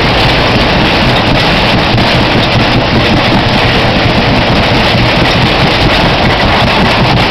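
Loud, steady rumble of a waltzer ride in motion, heard from a spinning car, with wind noise on the microphone.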